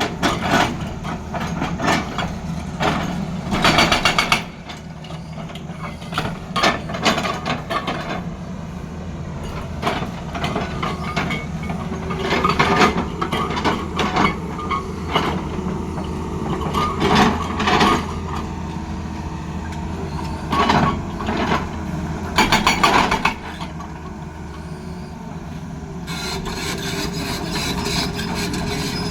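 Tata Hitachi excavator's diesel engine running steadily, with repeated short bursts of loud scraping and knocking from the machine at work.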